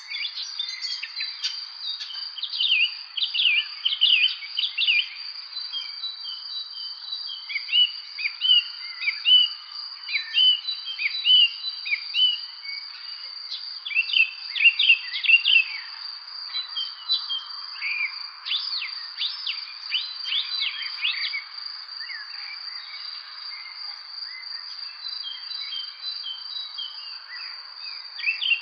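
Several small birds chirping and calling in quick, overlapping bursts of short high notes, with quieter gaps in between. A steady, unbroken high-pitched drone sounds beneath them.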